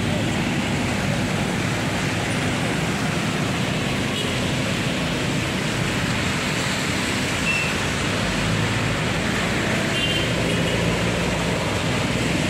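Heavy rain and traffic on a wet road: a steady hiss of rain mixed with cars passing, their tyres swishing through standing water.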